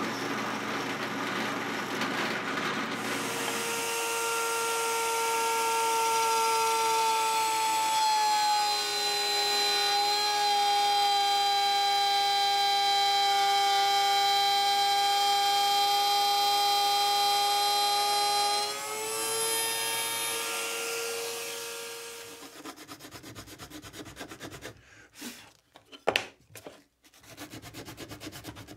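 A drill press bores briefly into plywood. Then a router table's motor starts with a steady high whine. Its pitch sags from about 8 s to about 19 s as the bit cuts adjustment slots in half-inch Baltic birch plywood, rises again when the cut ends, and the router winds down. Near the end a few strokes of sandpaper rub on the wood.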